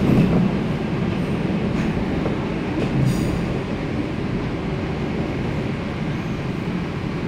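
Interior of an MTR K-Train metro car running on the rails: a steady low rumble of wheels and running gear, with a brief knock right at the start and another about three seconds in.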